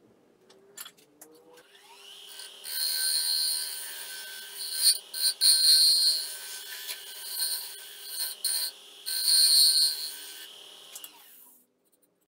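Wood lathe spinning up with a steady motor hum while a turning tool cuts inside a hollowed algarrobo colorado (carob) vase, in several bouts of scraping, hissing cutting noise. The lathe winds down near the end.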